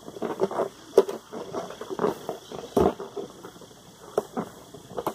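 Fingers working at the tied knot of an inflated latex balloon: irregular short rubbing sounds of the rubber, with louder clicks about a second in and again near three seconds.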